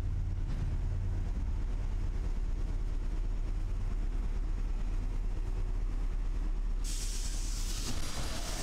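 Narrow-gauge train of the Roma–Giardinetti railway running, a steady low rumble; about seven seconds in a hiss joins in for about a second.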